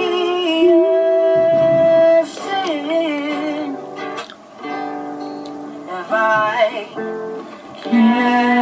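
A singing voice with acoustic guitar accompaniment, a slow melody with long held notes.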